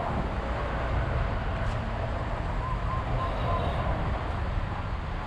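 Steady road traffic noise: a continuous low rumble of vehicles passing on a busy city road.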